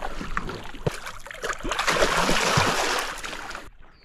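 Water splashing and sloshing, growing louder through the middle, with scattered sharp knocks, then cutting off abruptly near the end.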